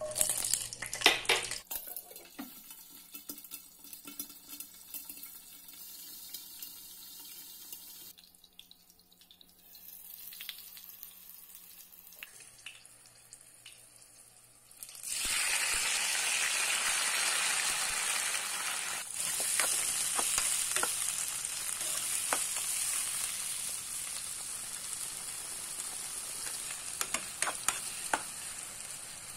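Green chillies dropped into hot oil crackle and spit for a moment, then fry with a quiet sizzle. About halfway through, chopped tomatoes tipped into the pan set off a sudden, much louder steady sizzle, with spatula scrapes as they are stirred.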